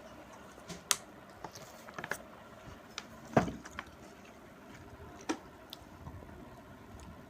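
Eating sounds of someone eating dal and rice: scattered short clicks and smacks, with a louder thump about three and a half seconds in.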